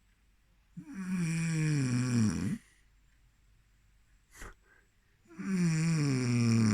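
Snoring: two long snores, each about two seconds and sliding down in pitch, a few seconds apart.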